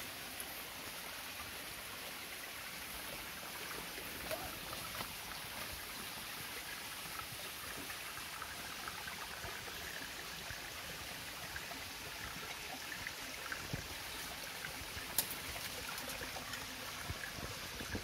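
Steady sound of a small forest stream running over rocks, with a few faint knocks and one sharp click about fifteen seconds in.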